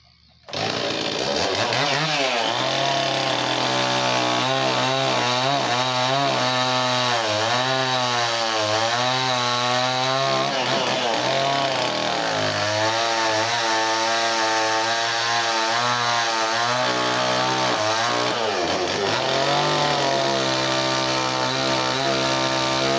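Stihl two-stroke chainsaw cutting into a wooden log, making roughing cuts for a carving. It comes in suddenly about half a second in, and its engine speed rises and falls as the chain bites into the wood, with deeper drops about ten and eighteen seconds in.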